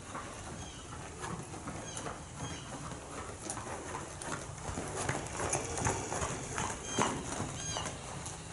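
A ridden horse's hoofbeats on the sand footing of a riding arena, growing louder about halfway through as the horse comes closer.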